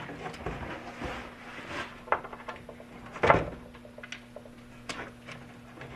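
Handling clatter: light clicks and knocks of parts being moved and set down on a hard surface, with one louder knock about three seconds in.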